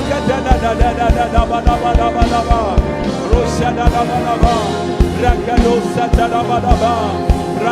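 Live church worship band music: a steady drum beat and bass under a wavering, held melody.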